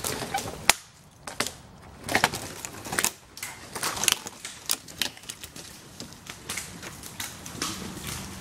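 Dry leaf litter and twigs crunching and snapping under footsteps and a long dead tree trunk being dragged across the forest floor, with irregular crackles and scrapes.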